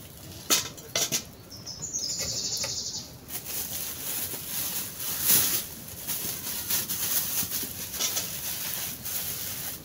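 Thin plastic carrier bag rustling and crackling as it is handled and opened, after two knocks as a metal saucepan is set down on the ground. A bird trills briefly about two seconds in.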